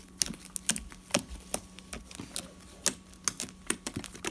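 Fluffy glue-and-shaving-cream slime being squeezed and stretched in the hands, giving off irregular wet clicks and pops, several a second.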